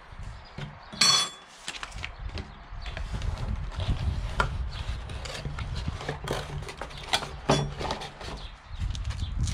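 Unpacking noises: cardboard box and packing being shifted and rustled by hand with scattered small clicks. A sharp knock on the wooden table comes about a second in, another later on, and a low rumble runs under it from about three seconds in.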